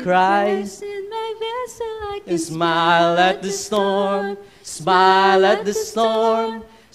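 A man singing a slow children's church song into a handheld microphone, with no accompaniment, holding long notes between short breaths.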